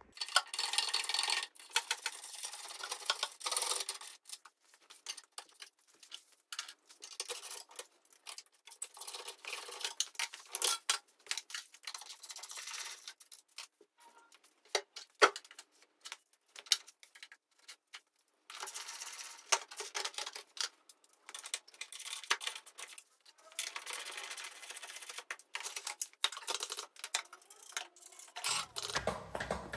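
Socket ratchet clicking and small metal clinks as a motorcycle's exhaust bolts are undone and the exhaust worked loose, in scattered runs with a sparser lull in the middle.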